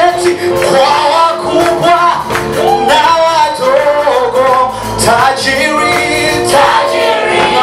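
Praise and worship song: voices singing a melody over a band, with a regular drum beat.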